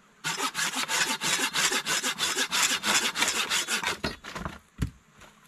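Hand saw cutting through a wooden pole in quick, short back-and-forth strokes, about seven a second, that fade out a little before the end. A single knock follows.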